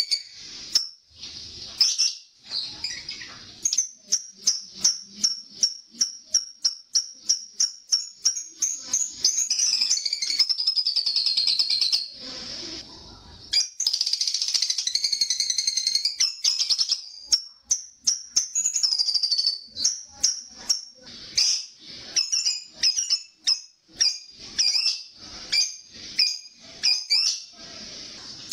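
Lovebird calling: fast runs of sharp, high chirps, about four or five a second, broken by several long buzzy trills, the drawn-out 'ngekek' chatter.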